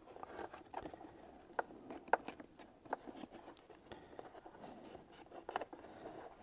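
Handling noise from a battery and its cables being fitted into the scooter's plastic floorboard battery bay: light scraping and rustling with several sharp clicks, the loudest about two seconds in.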